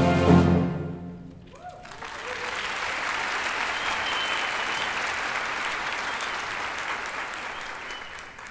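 An orchestra's closing chord cuts off about half a second in, and audience applause builds and carries on steadily, slowly fading near the end.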